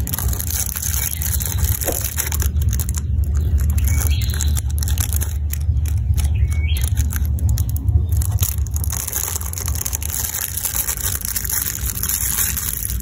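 Clear plastic wrapper crinkling and crackling in the fingers as a small plastic toy is picked out of it, over a steady low hum.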